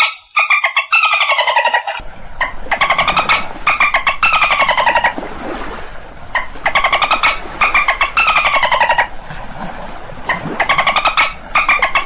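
Dolphin burst-pulse calls: a series of buzzy calls of about a second each, every one a rapid train of clicks that falls in pitch, with short pauses between them. A faint steady hiss lies underneath from about two seconds in.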